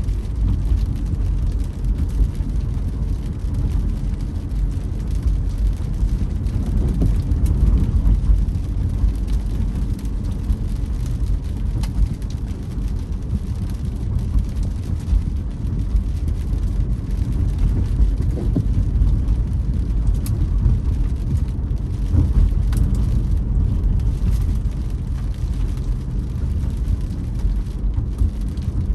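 A car driving on a rainy road: steady low road and engine rumble with rain noise on the car.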